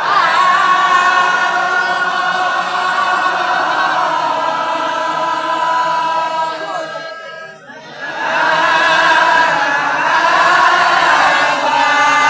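A group of voices chanting devotional verses together, with long held notes. The chant breaks off for a moment a little past halfway, then picks up again.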